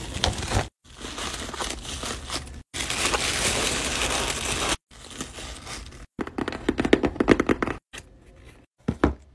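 Order-packing sounds in short cut-together clips: bubble wrap and plastic crinkling, then tissue paper rustling as it is pressed into a cardboard box. Near the end come a quick run of taps and a couple of sharp knocks.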